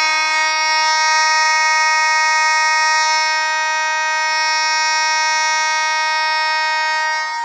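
Fire alarm horns, a Simplex horn and a Spectronics 450 mechanical horn, sounding together on a pulled station. It is a loud, steady, continuous blare with many overtones and no pulsing pattern.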